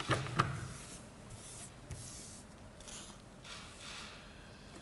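Quiet room tone with faint rustling and handling noise near the microphones, starting with two soft knocks in the first half second.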